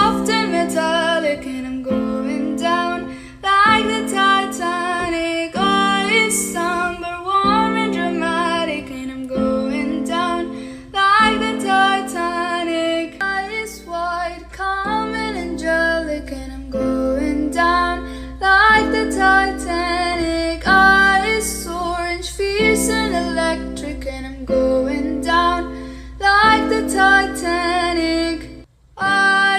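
Background music: a song with a female vocal melody over acoustic guitar, dropping out briefly just before the end.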